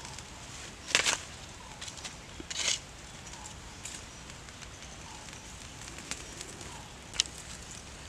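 Charcoal fire crackling under a pork leg roasting on a rack of sticks: a steady low hiss broken by sharp pops, loudest about a second in, again near three seconds and once near the end.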